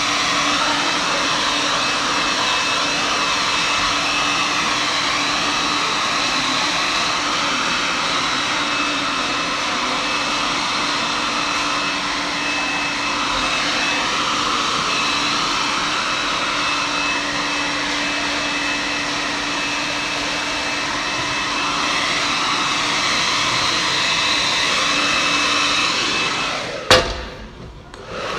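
Handheld hair dryer blowing steadily, switched off near the end, followed by a sharp click.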